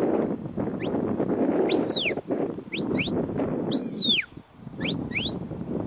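Shepherd's sheepdog whistle commands: short, quick rising chirps alternating with longer notes that rise and then fall, repeated in groups every second or two. Wind rushes on the microphone underneath.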